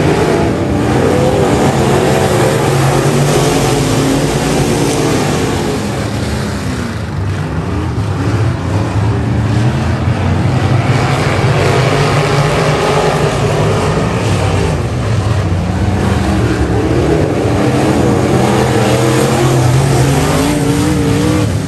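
A pack of dirt-track race cars running laps together, their engines rising and falling in pitch as they come off and into the turns.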